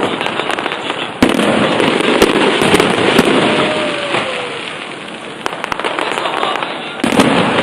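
Fireworks going off in rapid succession, a dense run of bangs and crackles. There is a sudden louder surge about a second in and another near the end.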